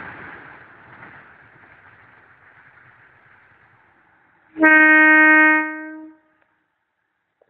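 Rumble of a tank-wagon freight train rolling away, fading steadily. Then a diesel railcar's horn sounds once, a loud steady single-note blast of about a second and a half that cuts off.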